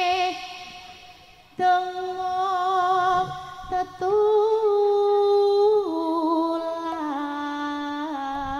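A woman singing a slow Javanese vocal line into a microphone, amplified through a PA. After a short breath about a second and a half in, she holds long notes with vibrato, which step down in pitch twice in the second half.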